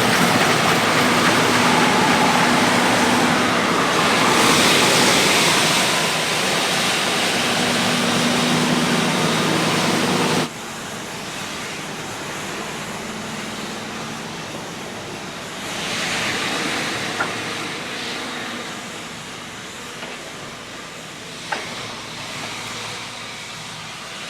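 Combine's diesel engine running steadily with a loud hiss of air and machinery. About ten seconds in the sound drops suddenly to a quieter steady hum, and two short clicks come near the end.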